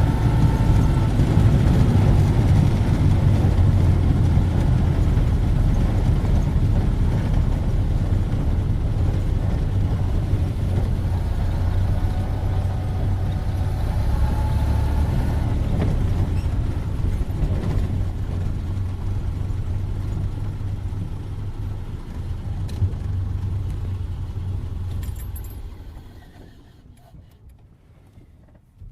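1931 Ford Model A's four-cylinder flathead engine running as the car is driven, a steady low hum with a faint whine that rises and falls now and then. About 25 seconds in the engine sound dies away over a couple of seconds.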